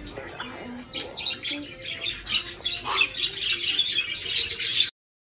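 A flock of budgerigars chattering in an aviary: many overlapping high chirps, warbles and squawks. The sound breaks off suddenly about a second before the end.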